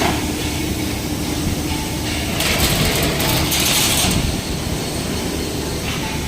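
Yawei CNC sheet-metal folding machine running as it folds a steel elevator door panel: a steady low mechanical rumble, with a burst of hiss from about two and a half to four seconds in.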